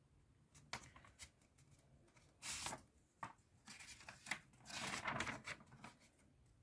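A small paper envelope being opened and a letter pulled out: several short bursts of paper tearing and rustling, the loudest about two and a half seconds and five seconds in.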